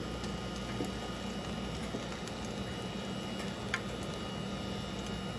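A steady electrical hum with a faint even hiss underneath, and a single light click a little after the middle.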